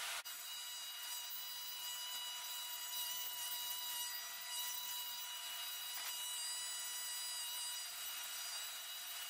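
John Deere combine running with a steady, high-pitched mechanical whine made of several even tones over a hiss.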